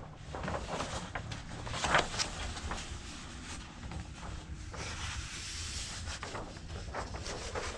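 A large paper poster rustling and crackling as it is handled, with a sharper crinkle about two seconds in.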